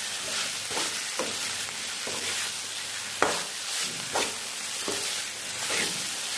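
A spatula stirring and scraping a thick mussel and coconut masala around a hot pan over a steady sizzle of frying, in repeated strokes, with one sharper scrape about three seconds in.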